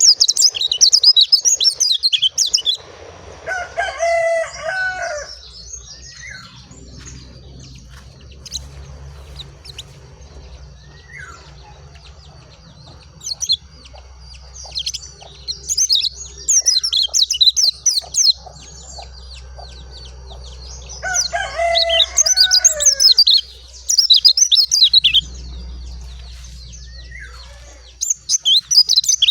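Pleci dakun (a white-eye) singing: a fast, high twittering song in bursts of a few seconds, with quieter gaps between. A lower call of a few stacked notes comes in twice, and a steady low hum runs underneath.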